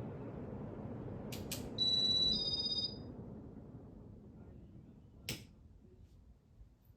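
Steady whoosh of a running ceiling fan that fades away, with two quick clicks and then a loud two-note electronic beep, a lower note and then a higher one, about two seconds in; a single click follows near the end.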